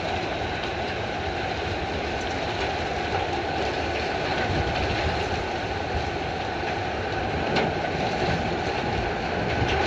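Heavy hail falling in a steady, dense rush, with many small hits clattering on hard surfaces.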